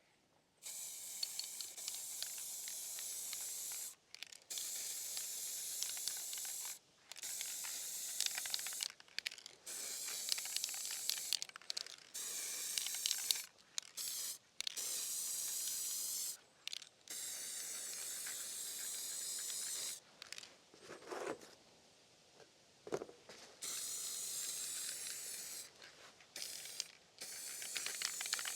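Aerosol can of black heat-resistant spray paint hissing in a series of bursts a few seconds long with short pauses between, as stove covers are painted. Near the middle there is a longer pause with a couple of soft knocks.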